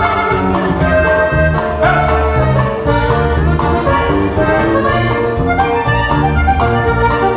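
Live dance band music: a melody of held notes over a steady, pulsing bass beat.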